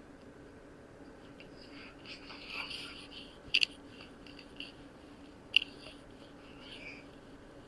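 Faint rustling of hands and fabric as a patient's neck is worked in cervical mobilization, with two short sharp clicks a couple of seconds apart past the middle.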